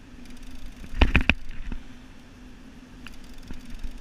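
Handling noise from a surf rod and reel while a hooked shark is wound in: a steady low mechanical hum, with three quick sharp knocks close together about a second in.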